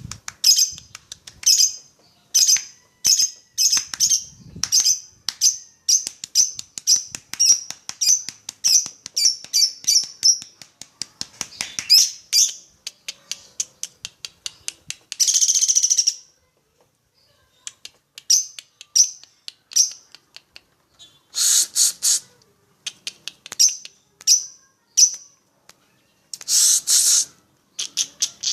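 Lovebird calling: a rapid series of short, high chirps at about two a second for the first ten seconds, then, after gaps, several dense bursts of fast chatter about a second long each.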